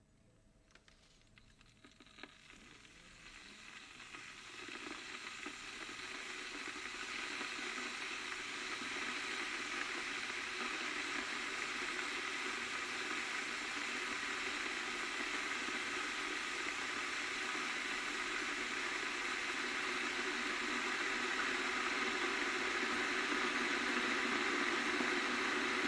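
Electric kettle heating water: a few faint ticks at first, then a hissing rush that grows steadily louder over about ten seconds and then holds steady as the water nears the boil.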